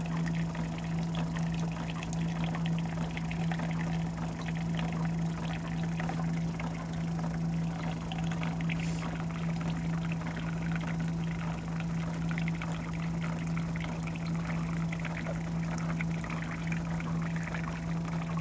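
A thin stream of dialysate trickling from a dialysis machine's line into a plastic cup, splashing into the liquid pooled at the bottom, over a steady low hum.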